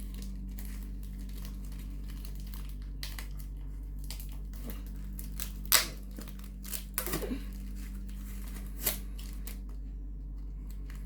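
Parcel wrapping being handled and opened: intermittent rustling and crinkling, with sharp crackles about six, seven and nine seconds in, over a steady low hum.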